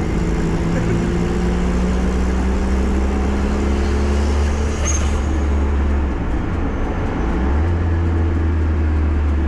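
Turbocharged Honda D16 four-cylinder engine running at a steady pitch, heard from inside the Civic's gutted, unsound-deadened cabin as it drives. The low hum dips briefly about six seconds in, then comes back.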